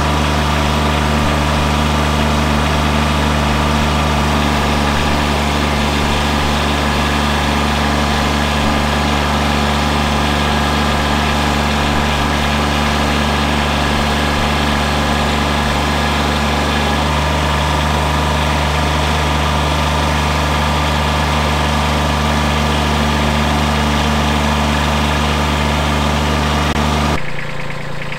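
Kubota B2601 compact tractor's three-cylinder diesel engine running steadily while the loader lifts and sets down a heavy log. Its note shifts slightly partway through, and near the end the sound drops abruptly to a quieter level.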